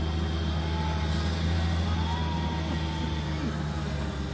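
Steady low mechanical drone.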